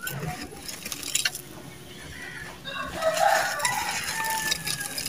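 Dry, gritty red sand-cement being dug out, squeezed and crumbled by hand in a clay pot, the grains crackling and pattering. In the second half a louder pitched call is heard in the background over the crumbling.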